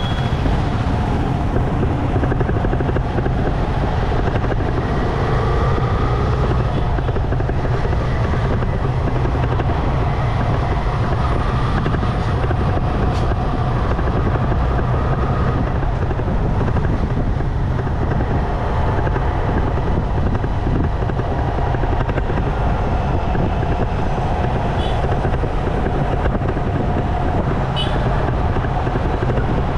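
Motorcycle riding through town traffic: a steady engine and road rumble with heavy low wind noise on the microphone. Two short high tones sound near the end.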